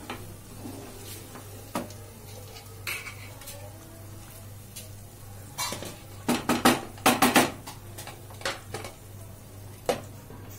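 Wooden spatula stirring and scraping peas and masala in a nonstick kadai, with scattered knocks against the pan. A little past the middle comes a quick run of loud clinks and knocks, and near the end a glass lid is set down on the kadai with a single knock.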